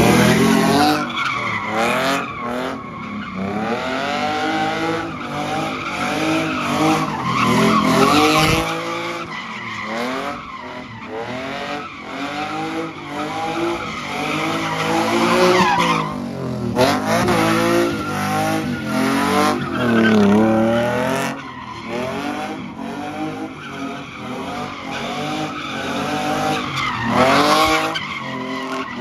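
BMW E46 3 Series doing donuts: the engine revs up and falls back over and over while the rear tires squeal and skid.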